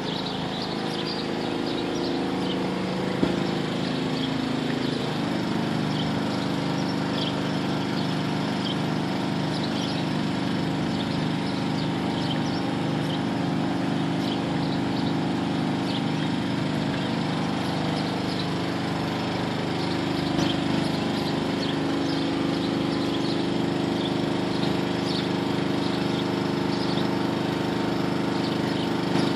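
Steady drone of a running motor, with a hum whose pitch pattern shifts about five seconds in.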